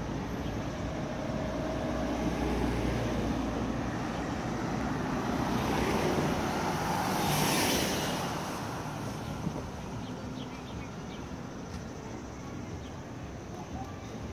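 A car driving past on an asphalt road: tyre and engine noise builds as it approaches, is loudest a little past the middle as it goes by, then fades away.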